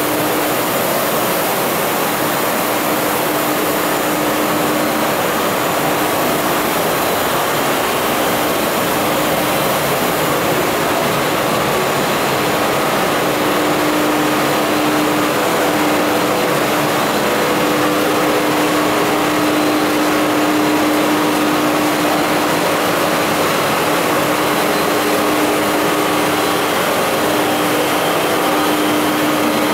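Steady drone of running pressroom machinery: an even mechanical noise with a constant mid-pitched hum that grows stronger about halfway through.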